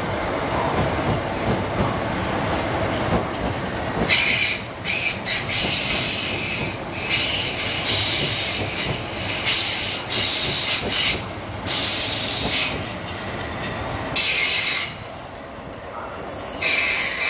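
Electric multiple-unit train rolling slowly along a station platform with a steady rumble of wheels on rail. From about four seconds in, loud high-pitched wheel squeal cuts in and out several times.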